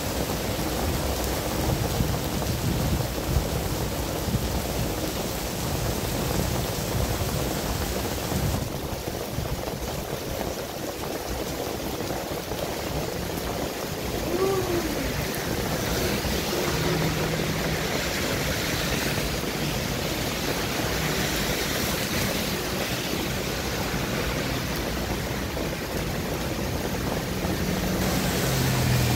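Heavy rain pouring steadily on a wet city road, with a low rumble in the first few seconds and passing vehicles' tyres hissing on the wet asphalt.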